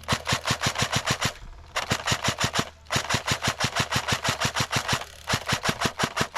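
Airsoft gun firing on full-auto in four long bursts of rapid, evenly spaced shots, about eight or nine a second, with short pauses between bursts: suppressing fire.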